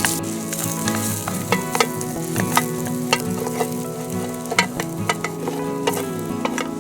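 Carrots and onions sizzling in oil in the lid of a camping pot used as a frying pan, with a metal utensil clicking and scraping against it many times as the vegetables are stirred and scooped out.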